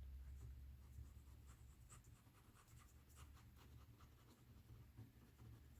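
Faint scratching and light ticking of paper being handled and worked on a craft table, with a low steady hum under it.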